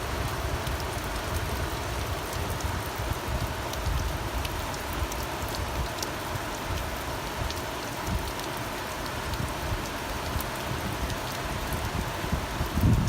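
Steady rain falling, with scattered sharp drop ticks over a continuous hiss and an uneven low rumble underneath.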